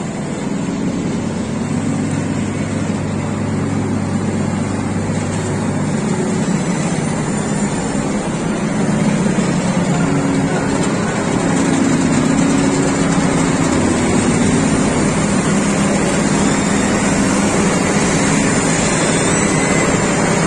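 Asphalt paver's diesel engine running steadily with a low hum as the machine lays asphalt. It gets a little louder from about nine seconds in.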